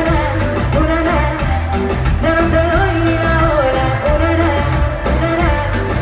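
Latin pop song played loud through stage speakers: a woman singing a melody over a backing track with a steady heavy bass beat.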